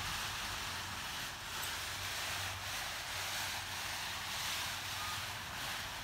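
Wind blowing in gusts, with a low rumble of wind on the microphone.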